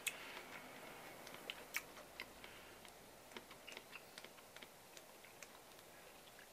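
A stoneware cup lifted off a wooden counter with a sharp click, followed by faint, scattered small clicks and ticks of handling in a quiet room.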